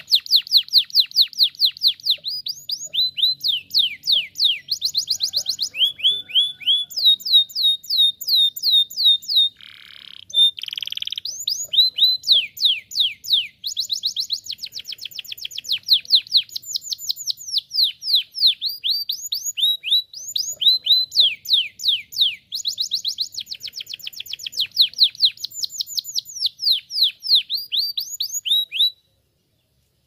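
Domestic canary singing: a long song of fast trills, each a run of quick high notes sweeping downward, the speed changing from phrase to phrase. There is a brief break about ten seconds in, and the song stops about a second before the end.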